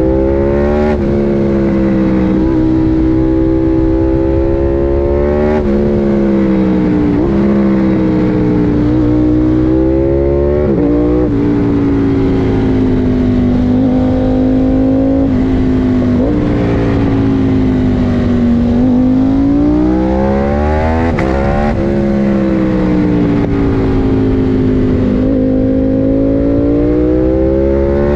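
KTM 890 Duke R's parallel-twin engine with an Akrapovič exhaust, ridden hard. Its pitch climbs through the revs and drops sharply at each upshift, about eight or nine times, with a few slower falls and rises as it slows for bends and pulls out again.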